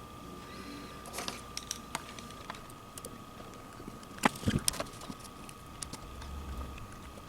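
Scattered small clicks and taps of the plastic display housing and its parts being handled and fitted back together, with a louder cluster of clicks a little past halfway. A faint steady high whine runs underneath.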